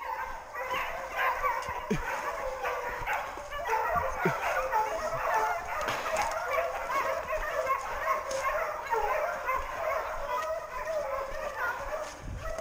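A pack of scent hounds giving tongue together, with many overlapping barks, bays and yelps: the cry of running hounds on a wild boar's trail.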